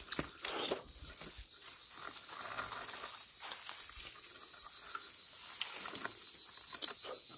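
Insects buzzing in a steady high-pitched drone, with scattered faint clicks and rustles of leaves and handling.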